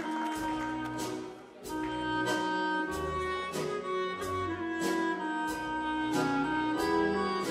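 Serbian folk orchestra playing an instrumental interlude: accordion and woodwind melody over an evenly pulsing bass, with a brief dip about one and a half seconds in.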